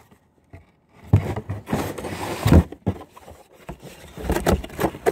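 Close handling noise: rubbing and scraping with several heavy thumps, the loudest about two and a half seconds in. It follows about a second of near silence.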